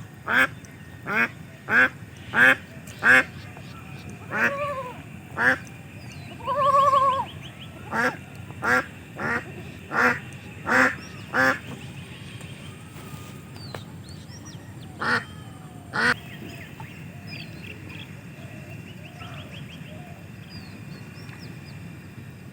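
Ducks quacking in a rapid run of about a dozen short calls, with one longer drawn-out call in the middle, then two more calls a few seconds later. Faint small-bird chirps sound over a steady low hiss.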